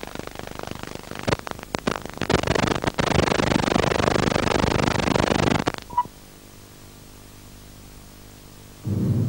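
Static hiss and crackle from a damaged VHS tape, loud from about two seconds in, that cuts off suddenly near six seconds with a short high beep. A quiet low hum follows, and a loud low sound starts just before the end.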